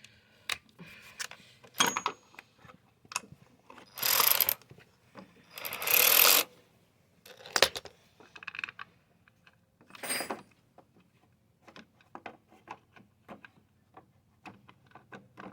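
Hand ratchet clicking in short runs as the carburetor bolts are tightened down, with three louder half-second noisy bursts about four, six and ten seconds in.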